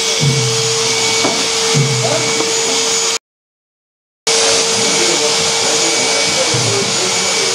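A steady, loud rushing hiss with a constant hum running under it, like a blower or motor. It cuts out completely for about a second midway, then resumes unchanged.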